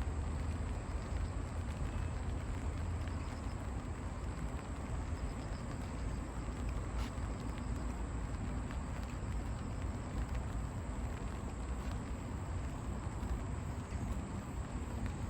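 Steady background noise with a low rumble and no distinct events.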